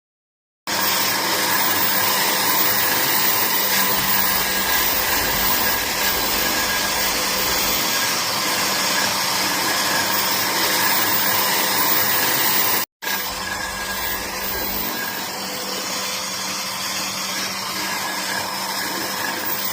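Electric power tool running steadily with a constant motor whine. It starts about a second in, drops out for a moment about two-thirds of the way through, then runs on a little quieter.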